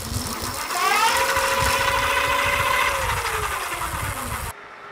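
750 W rear hub motor of a Mokwheel Tor Plus e-bike spinning the raised rear wheel: a whine that rises in pitch as the wheel speeds up, holds steady, then falls as it slows. The sound cuts off suddenly near the end.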